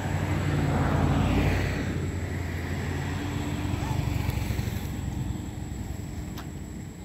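A motor engine hums steadily and swells louder about a second in, then eases off.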